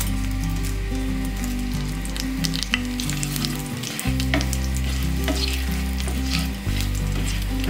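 Cumin seeds, dried red chillies and bay leaves sizzling and crackling in hot mustard oil in a frying pan as they are tempered, while a wooden spatula stirs them. Soft background music with long low notes runs underneath.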